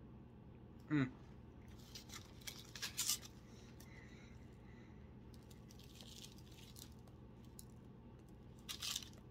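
A short hum from a person about a second in, then a cluster of crackly tearing as a sandwich bun is pulled apart by hand, with another brief tearing crackle near the end.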